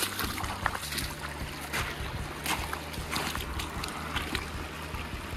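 Feet wading through a shallow, rocky creek: irregular splashing steps in the moving water.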